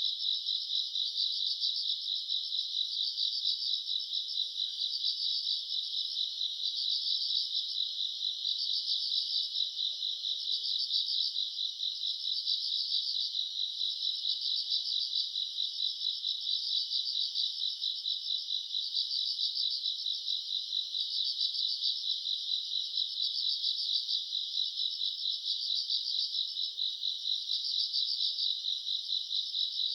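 A chorus of summer-night grass insects chirring without a break: a dense, high-pitched trill with a fast, even pulsing.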